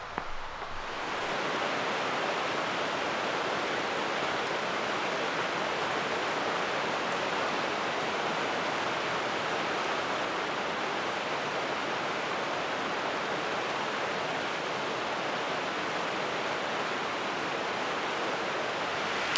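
Mountain stream rushing over rocks and small rapids: a steady rush of water that sets in about a second in and holds level.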